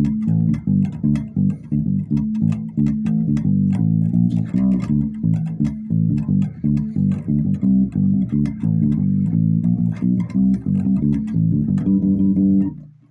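Electric bass guitar played through a guitar amplifier: a steady run of plucked notes in a cumbia line, with one tone control turned up slightly. The playing stops near the end.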